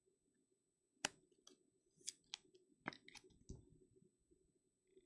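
Faint clicks and taps of a clear rigid plastic card holder being handled as a trading card goes into it: a sharp click about a second in, then several lighter clicks over the next two and a half seconds.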